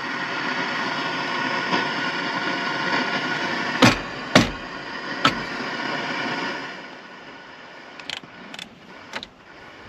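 Static hiss from a 1985 Chevy Caprice's factory radio, whose fault leaves it getting only static on all channels; the hiss drops off about two-thirds of the way through. A few sharp clicks sound over it: three in the middle, and fainter ones near the end.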